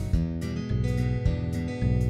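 Background music: instrumental, with a steady, even beat of strummed chords.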